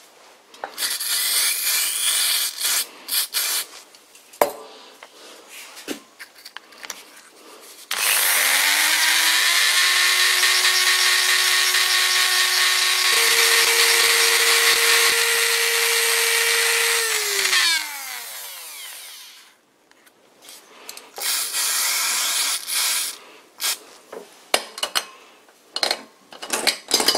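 A handheld rotary tool spins up about eight seconds in and runs steadily at high speed for about nine seconds, driving a small brush in the threaded oil-cup hole of a cast-iron lathe headstock to clear rusty thread, then winds down with a falling pitch. Before and after the run come short bursts of scratchy scrubbing and a few clicks.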